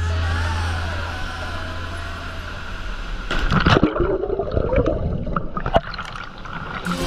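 Rushing water of a waterfall, then from about three seconds in loud bubbling and gurgling heard underwater in the plunge pool beneath the falls.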